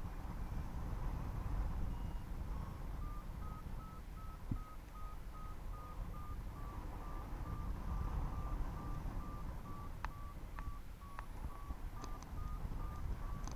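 Paragliding variometer beeping about three times a second, short mid-pitched beeps that begin a few seconds in and rise slightly in pitch: the climb tone sounding while the glider climbs in a thermal. Wind rumble on the microphone underneath, with a few soft clicks near the end.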